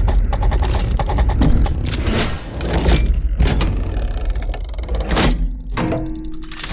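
Designed steampunk machinery sound effects: rapid mechanical clattering and ticking over a deep, steady low rumble, with a short hiss a little over two seconds in and a brief steady hum near the end.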